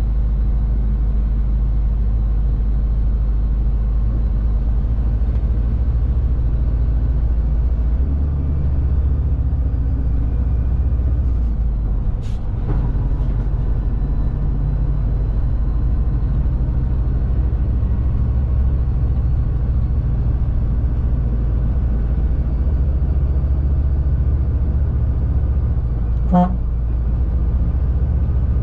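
Shacman X3000 heavy diesel truck driving, heard from inside the cab as a steady low engine drone with road noise. A brief knock comes near the middle and a short horn toot near the end.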